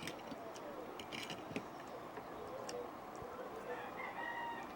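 Faint clicks and smacks of chewing and eating, with a faint voice in the background.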